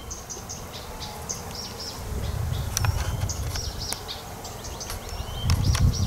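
Songbirds singing in short high chirps over insects buzzing, with a low rumble underneath that swells near the end.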